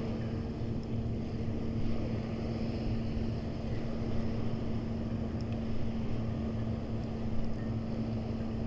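Motorboat engine droning steadily on one low pitch, over wind and surf noise.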